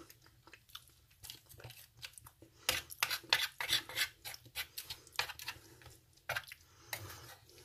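Plastic MRE spoon stirring shredded chicken in sauce and scraping and clicking against a stainless steel compartment tray, in quick irregular strokes.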